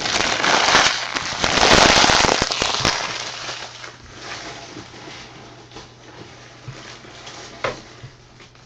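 Plastic wrapping on a trading-card box being torn open and crinkled, loud for the first three seconds, then quieter crinkling with a few sharp crackles.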